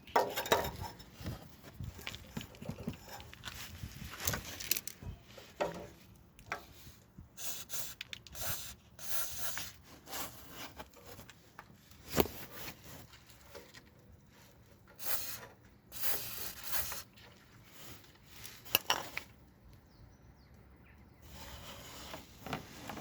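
Scattered clinks, knocks and rubbing of hand work on car exhaust parts, with a few short hissing bursts in between.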